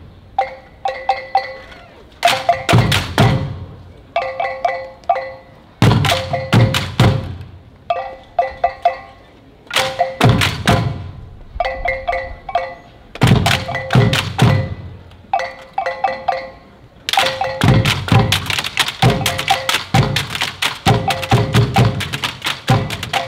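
Percussion music: clusters of sharp wooden knocks alternate, about every two seconds, with runs of quick pitched mallet-like strokes on the same few notes. In the last several seconds the knocks run on without pause.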